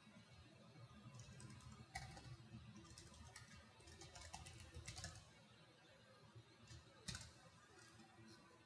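Faint typing on a computer keyboard: keys clicking in short runs, with a sharper key strike about two seconds in and another about seven seconds in.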